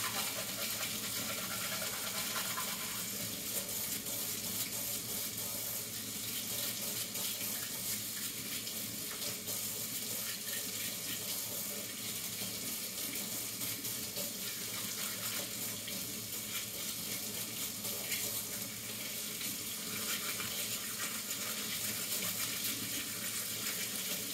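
Kitchen tap running steadily into a stainless steel sink, with light scrubbing of a small metal part under the stream.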